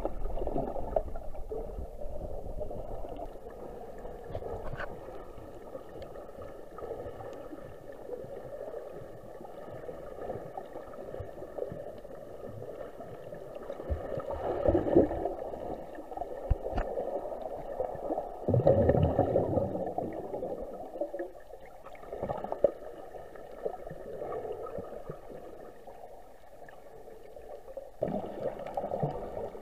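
Muffled underwater noise picked up through a camera's waterproof housing: low water rushing and gurgling that swells louder about halfway through and again a few seconds later.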